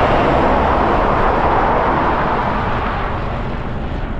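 A big truck passing close by on the highway: a loud rush of engine and tyre noise that swells over the first two seconds and fades toward the end.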